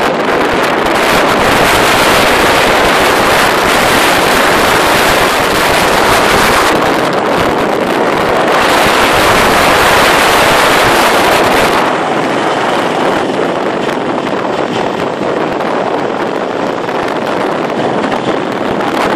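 Heavy wind buffeting the microphone of a camera moving at road speed, a dense steady rush. It eases off about twelve seconds in.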